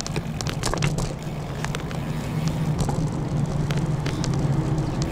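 Steady low hum of a motor vehicle's engine, with scattered clicks and crackles over it.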